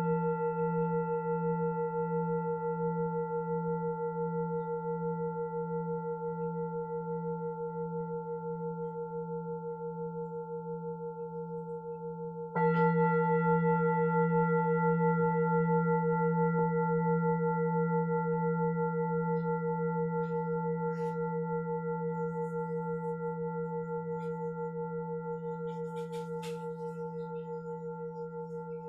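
Singing bowl ringing with a slow wavering pulse and fading away. It is struck again about twelve seconds in and rings on, fading.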